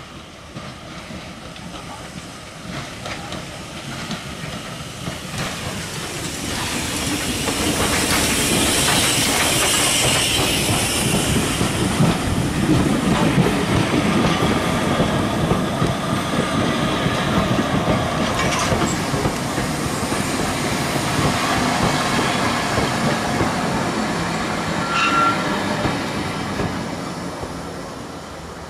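Steam train of vintage compartment coaches passing close by without stopping. The noise builds as the locomotive approaches and is loudest about eight to thirteen seconds in. The wheels then clatter rhythmically over the rail joints as the coaches go by, and the sound fades near the end.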